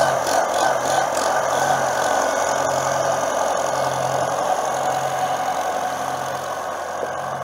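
Old Farmall tractor's engine idling. Its firing beats are distinct for about the first second and then merge into a smoother, steady running sound that grows slightly fainter near the end.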